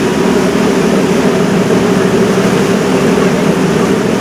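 Steady low drone of a river cruise ship's engine, with no change in pitch or level.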